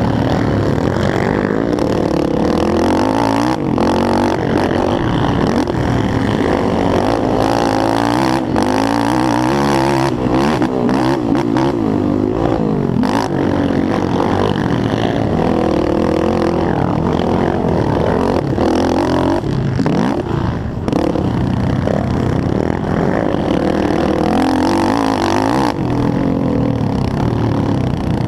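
Yamaha YFZ450R racing quad's single-cylinder four-stroke engine under hard race throttle, revving up and falling back again and again as it accelerates and shifts, with brief sharp knocks from the machine.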